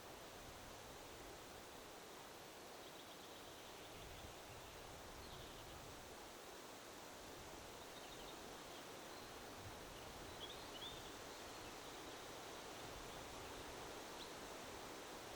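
Faint, steady wind noise outdoors, with low gusty swells now and then and a few short, faint bird chirps scattered through.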